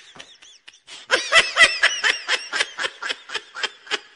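High-pitched laughter: a rapid run of short giggling pulses, about four to five a second, faint at first and louder from about a second in.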